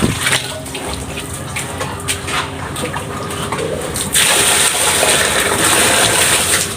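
Water running into a barrel, then a louder gushing rush of water starting about four seconds in and lasting a couple of seconds.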